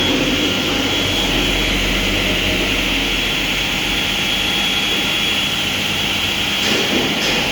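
Stone-cutting saw running steadily with its blade cutting through stone, a continuous grinding noise with a high steady whine, during a reverse-direction cut.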